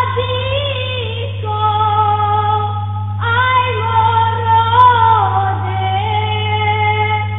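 A choir singing in harmony in long held phrases, the voices moving pitch together between sustained notes, over a steady low hum.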